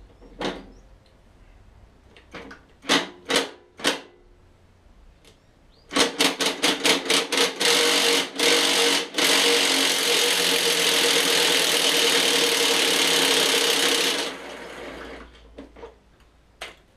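Impact gun hammering on a seized lawnmower blade fixing: a few short bursts about six seconds in, then one continuous rattling run of about six seconds that cuts off, the fixing coming free. A few knocks of handling come before it.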